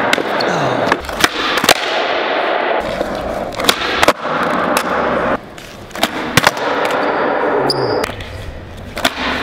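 Skateboard wheels rolling on a smooth concrete floor, broken several times by sharp clacks of the tail popping and the board slapping back down as flatground tricks are tried.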